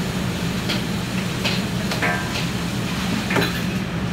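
Water sizzling and hissing into steam on a hot flat-top griddle as it is washed, over the steady low hum of the kitchen exhaust hood fan, with a few short clinks.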